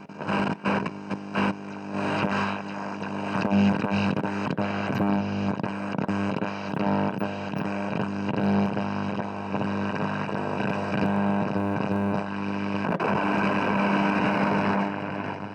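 Radionette Menuett valve radio's loudspeaker giving out noise with no clear station: a steady mains-like hum and buzzing, whistling tones under shifting static, with a run of crackling clicks in the first second or so.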